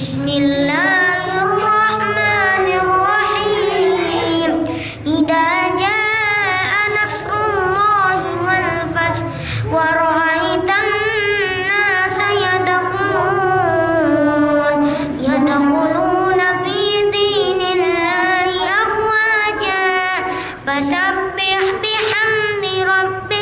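A young boy's voice reciting the Quran in melodic, ornamented chant (tilawah) into a handheld microphone: long held phrases with wavering, gliding pitch, broken by a few short pauses for breath.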